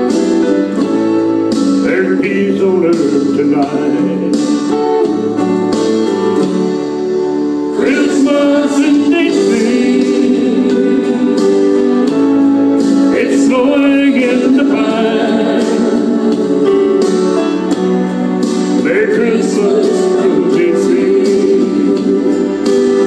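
A song: singing over strummed acoustic guitar.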